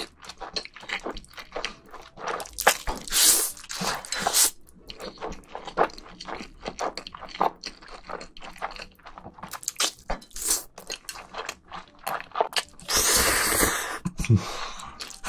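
Close-miked mouth sounds of eating jjajangmyeon black bean noodles: wet chewing and smacking, with slurps of the noodles, the longest one a little over a second about thirteen seconds in.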